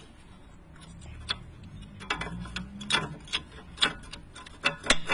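Sharp metallic clicks and taps, about ten irregular ones with the loudest near the end, as a rear brake pad is pressed and worked into the caliper by hand, its clip going into the piston.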